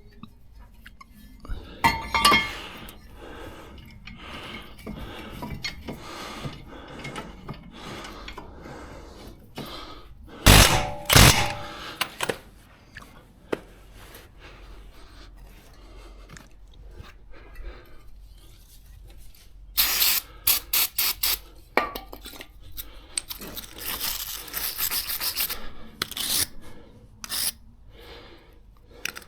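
Hand tools working on a car: irregular metal clanks, knocks and scrapes, with a few loud knocks about a third of the way in and a quick run of clicks later on.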